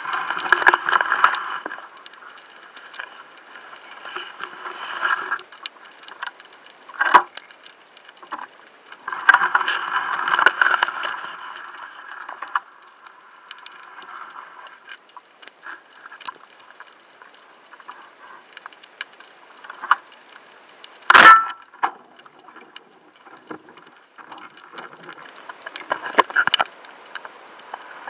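Underwater sound from a camera mounted on a speargun: scattered clicks and crackles with swells of rushing water noise as the diver moves, and one sharp, loud knock about 21 seconds in.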